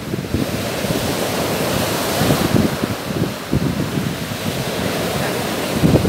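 Stormy sea surf breaking and washing up a pebble beach in a steady roar of foam, with wind buffeting the microphone.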